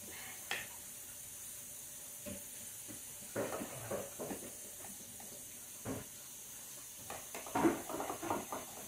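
Plastic spoon scraping and tapping on a plate while eating, in a few light clicks and short scraping clusters, over a steady hiss.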